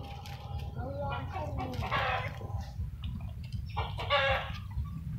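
A few short, pitched animal calls, the loudest about two seconds and four seconds in, over a steady low rumble.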